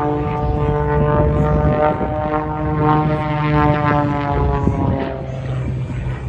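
Aerobatic biplane's piston engine and propeller droning in the sky, the pitch sliding gradually lower as it passes; the higher tones fade about five seconds in, leaving a lower drone.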